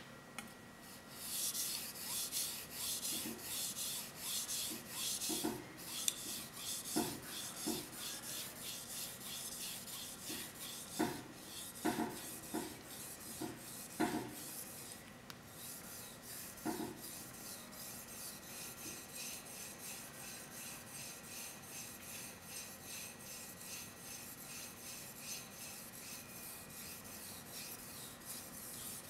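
A carbon-steel Japanese gyuto blade is being sharpened on a wet Okudo suita natural whetstone, scraping in quick, even back-and-forth strokes. A few light knocks come through the first half, and the strokes grow fainter in the second half.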